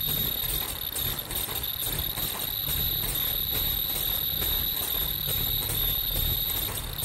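Fully automatic double-head earloop welding machine for three-layer surgical masks, running in production. It makes a steady high-pitched whine over a low hum.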